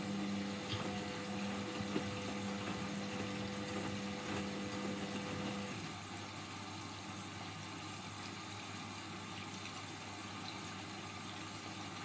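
Indesit front-loading washing machine running, its drum turning with water swishing inside over a steady low hum. A humming tone from the machine stops about halfway through, and the sound gets slightly quieter.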